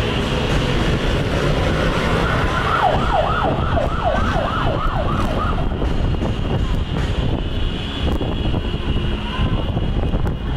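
Police escort siren sounding a rapid yelp, a quick run of repeated pitch sweeps about four a second, from about three to five and a half seconds in, over steady heavy road-traffic noise.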